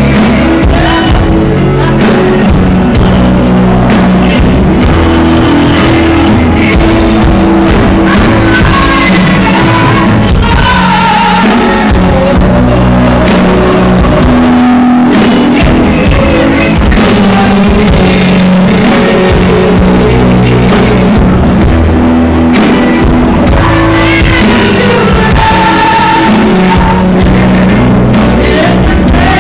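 Live band playing loud, with drum kit, electric guitar and keyboard under several singers on microphones.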